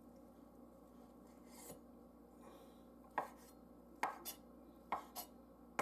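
Chef's knife slicing cold cooked turkey on a wooden cutting board. A quiet first half is followed by several sharp knocks of the blade meeting the board.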